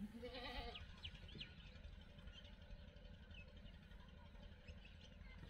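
A kitten gives one short, wavering meow in the first second, followed by a few faint, scattered bird chirps over near silence.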